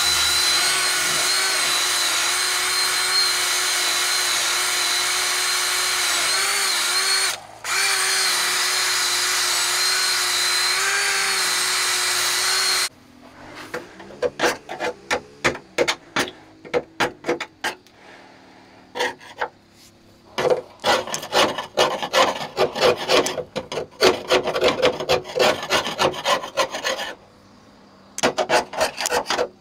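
A handheld power tool running steadily while taking corrosion off metal. It lets off briefly about seven seconds in and stops about halfway through. Quick, irregular scraping strokes follow in clusters.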